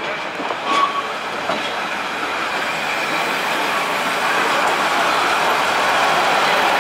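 KiHa 40 diesel railcar rolling slowly past at close range in a shunting move, its diesel engine running and wheels clacking over the rails, the sound growing steadily louder as it passes. A brief sharp sound stands out about a second in.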